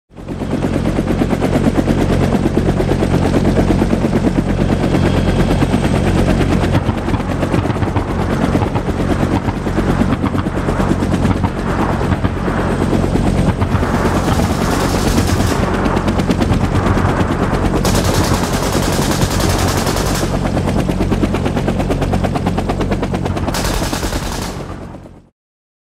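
Super 8 film projector running: a fast, even mechanical clatter over a steady motor hum, cutting off suddenly near the end.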